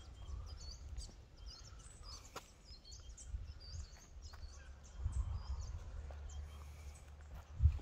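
Small birds chirping over and over in short, high notes, over a low wind rumble on the microphone that swells around the middle and ends in a short buffet near the end.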